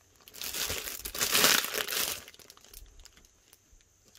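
Clear plastic packaging bag crinkling as the squishy inside it is handled and squeezed. The crinkling is loudest in the first two seconds and dies down to a few faint crackles.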